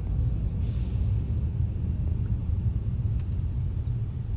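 Audi A7's 3.0-litre supercharged V6 running steadily with a low rumble, left running to bleed air from its freshly refilled cooling system.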